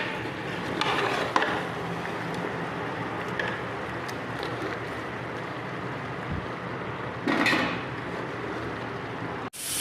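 Kitchen cooking sounds: a steady hiss from the pot of mutton paya on the stove, with a few light knocks. About seven seconds in comes a louder rush of noise lasting about half a second.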